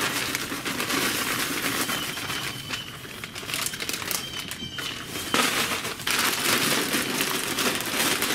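Wood pellets pouring from a plastic bag into a pellet grill's hopper: a dense, crackly rattle of pellets landing on pellets, mixed with the crinkling of the bag.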